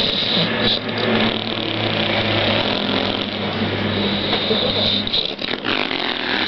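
A person snoring: a steady low drone that holds for about five seconds, then breaks off.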